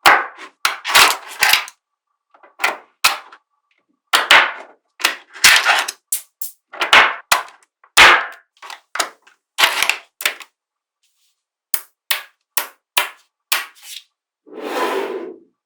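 Small neodymium magnetic balls snapping together, giving many sharp clicks at irregular intervals, some doubled or in quick clusters. Near the end there is a longer rattle lasting about a second.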